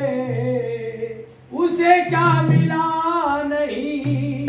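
A singer performing a Sufi devotional kalam in long, ornamented held notes. The first phrase slides downward and trails off about a second in, and a new phrase begins about a second and a half in.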